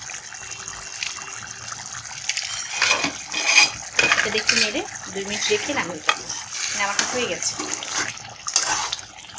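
Metal spatula stirring and scraping through a simmering fish curry in a metal karahi, with irregular clinks against the pan among the bubbling liquid.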